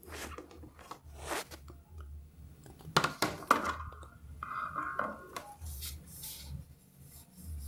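Handling noises at a turntable, with a scattering of knocks, clicks and short scrapes as a vinyl record and its slipmat are set back in place, the loudest knocks about three seconds in. A low hum runs underneath.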